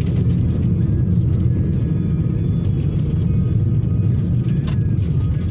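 Road noise inside a car's cabin: a loud, steady low rumble of tyres and suspension on a rough, broken road surface, with one short sharp click about four and a half seconds in.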